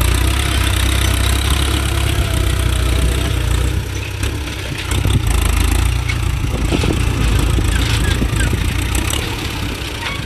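Ford 6610 tractor's four-cylinder diesel engine running steadily under load while pulling a disc plough through a field: a continuous low rumble that eases briefly about four seconds in.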